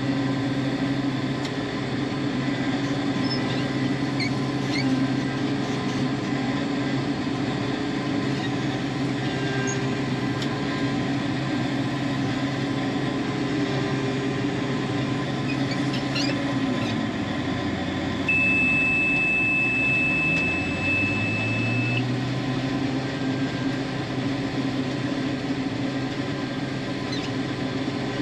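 Combine harvester engine running steadily under load. About two-thirds of the way through, the engine note sags and then climbs back, and a steady high-pitched warning beep sounds for about four seconds.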